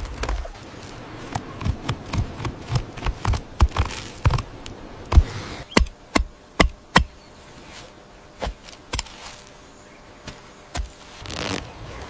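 A blade chopping raw meat: a run of sharp knocks, fastest and loudest around the middle at about two to three a second, then a few scattered chops.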